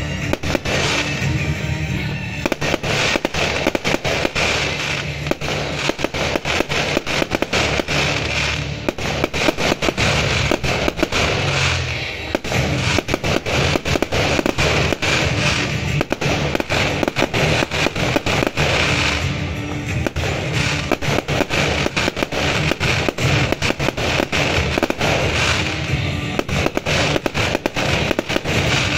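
Fireworks display: shells bursting overhead in many bangs in quick succession, with music playing underneath.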